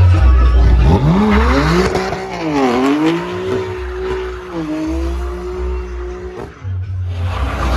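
A car engine revving hard: the pitch climbs steeply about a second in, dips briefly, then holds at high revs for several seconds before cutting off near the end.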